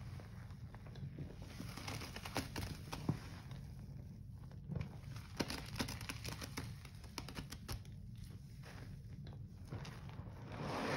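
Gloved hands squishing and pressing thick wet foam of Comet cleanser mixed with Pine-Sol and bleach, with many small crackling clicks of the froth. A louder wet squelch comes near the end.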